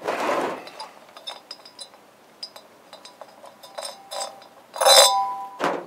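Light metallic clinks and rattles as a part is taken off the top of a 1974 International Scout II's engine to get at the carburetor. About five seconds in comes a louder metal clank that rings briefly.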